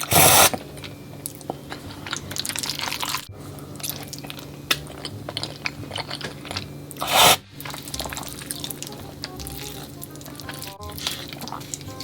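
Close-miked noodle eating: wet chewing and smacking with many small clicks, and two loud slurps, one right at the start and one about seven seconds in.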